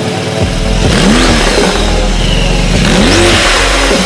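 Porsche 911 GT2 RS's 3.8-litre six-cylinder boxer engine revved twice while standing, each throttle blip rising in pitch and falling back, about a second in and again about three seconds in.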